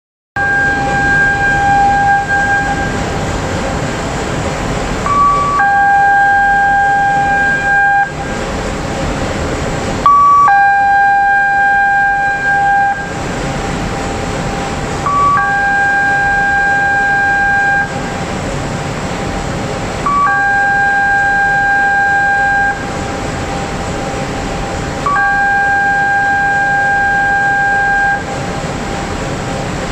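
Ship's alarm column horns sounding a lifeboat drill alarm: a brief higher beep, then a long steady tone of about two and a half seconds, repeating about every five seconds. A steady low rumble runs underneath.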